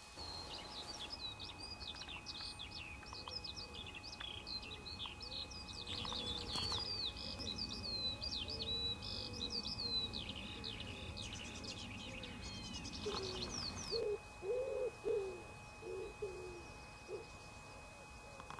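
Dawn chorus of small songbirds chirping and twittering. About two-thirds of the way through, a wood pigeon begins cooing, a short phrase of low, soft coos.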